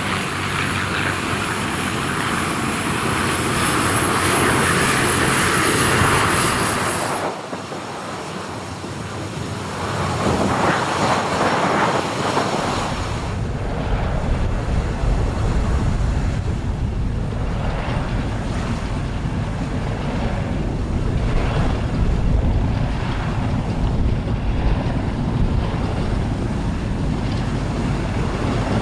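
Piston-engined Second World War fighter running its propeller engine. The sound drops off suddenly about seven seconds in, and from about halfway a heavy deep rumble takes over and holds steady.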